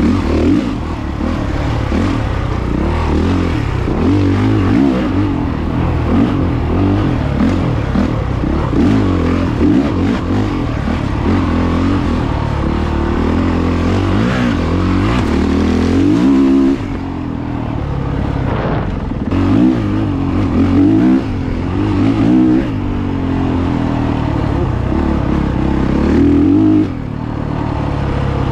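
Dirt bike engine revving under hard throttle, the note climbing and falling continually, with the throttle cut back sharply a few times, most clearly about halfway through and near the end.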